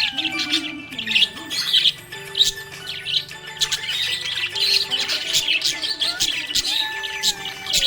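Budgerigars chirping and chattering, a dense run of quick chirps, squawks and clicks from several birds, over a few long held tones.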